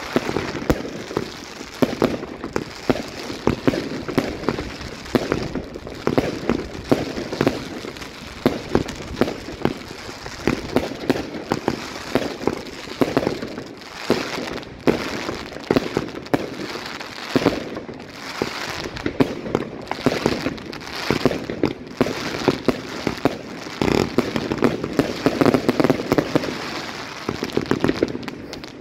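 Evolution Fireworks 'Mayhem' 150-shot firework cake firing a continuous barrage of rapid, overlapping launches and bursts, with no break.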